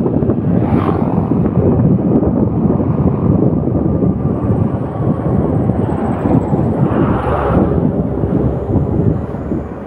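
Heavy wind buffeting on the microphone over the steady noise of a moving vehicle.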